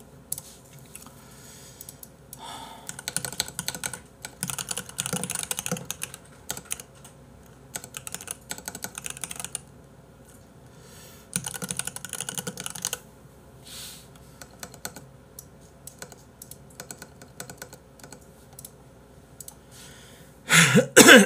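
Typing on a computer keyboard: rapid key clicks in bursts a second or two long, with pauses between.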